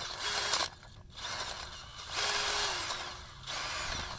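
Cordless drill boring a hole through a steel post, run in several short bursts of the trigger. In the middle burst the motor's whine slides down in pitch as it slows.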